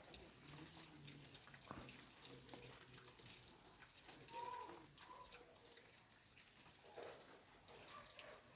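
Faint rain falling, with many small drops dripping and ticking.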